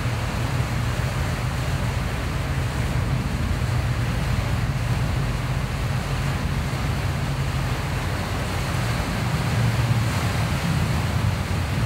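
A boat's engine drones steadily inside the wheelhouse under a constant rush of storm wind and rain, swelling slightly about ten seconds in.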